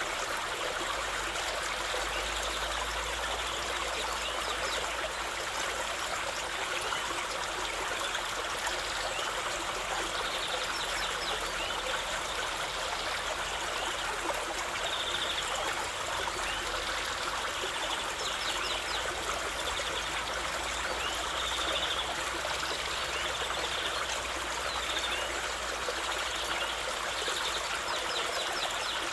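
A small stream of running water, flowing and trickling steadily, with faint short high chirps now and then.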